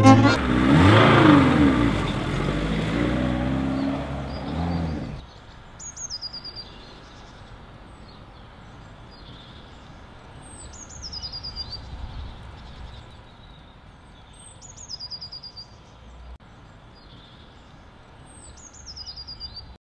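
A songbird repeats a short, high phrase that sweeps downward, four times about four seconds apart, over a faint steady outdoor background. In the first five seconds a louder rumble whose pitch rises and falls is heard, and it cuts off suddenly.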